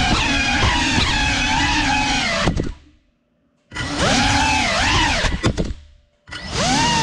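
FPV drone's motors and propellers whining, the pitch sliding up and down with throttle changes. The whine cuts out abruptly twice for about a second, and a few sharp clicks come just before the second cut.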